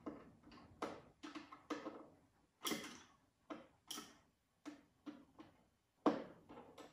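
About ten sharp clicks and knocks at uneven intervals, the loudest near the middle and near the end, as curtain fittings are pushed and worked into place by hand.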